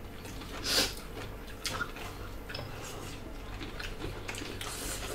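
Close-up eating sounds: wet chewing, lip smacks and small clicks from people eating rice and salad with their hands. A brief louder breath-like sound comes about a second in.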